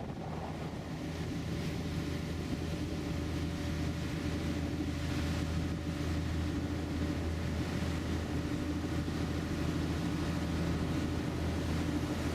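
Rescue boat's engine running steadily under way, a low drone, with wind and water noise over it.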